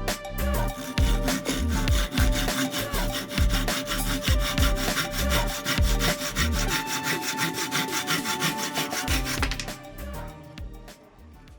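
Freshly sharpened hand saw cutting through wood in quick, steady back-and-forth strokes. The strokes die away about ten seconds in.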